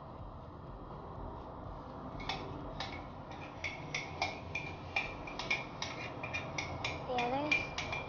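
Metal spoon scooping cocoa powder from a tin, clinking against the tin's rim and the mixing bowl in quick light taps. The taps begin about two seconds in and come several a second.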